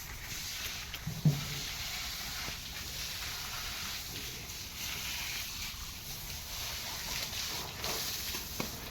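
Steady hiss of water spraying while buffaloes are washed, with one short, loud low sound about a second in.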